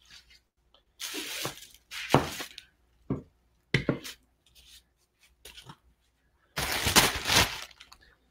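Packaging rustling and crinkling as it is gathered up and moved by hand, in several short bursts with a few knocks, the longest and loudest about seven seconds in.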